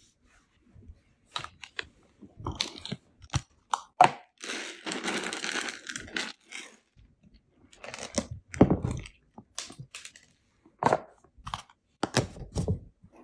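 Rustling and crinkling of clothing and fur, with irregular clicks and knocks, as a ragdoll cat squirms and scrambles on a person's lap. A denser burst of rustling comes about four seconds in.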